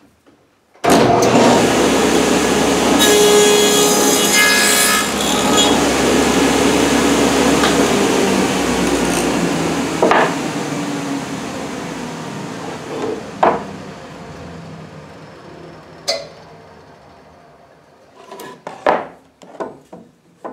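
Table saw with a 3/4-inch dado stack switched on about a second in, cutting into wood for a couple of seconds. It is then switched off and slowly spins down, with a few sharp knocks from the sled and workpiece being handled.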